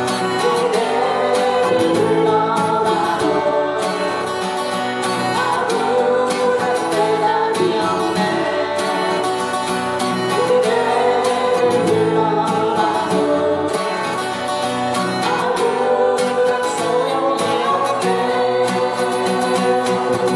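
A singer's voice carries a Korean ballad melody over steadily played acoustic guitar accompaniment.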